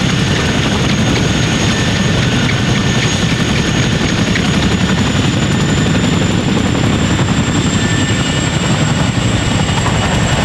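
CH-47D Chinook tandem-rotor helicopter running close by: a fast, heavy beat of rotor blades with a high, steady turbine whine above it that rises slightly midway.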